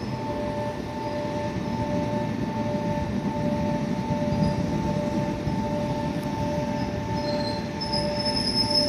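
JR 205 series electric commuter train pulling into a station platform and slowing to a stop, with the rumble of the cars swelling and easing. Two steady high tones sound throughout, and a high-pitched squeal of the brakes comes in near the end as the train halts.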